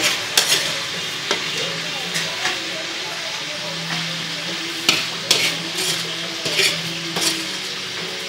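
Food sizzling and frying in a hot pan, a steady hiss, with a metal utensil clinking and scraping against the pan at irregular intervals.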